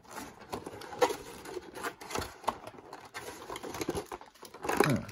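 Rigid clear plastic blister packaging crackling, clicking and creaking as it is pried open by hand, with a louder crackle near the end.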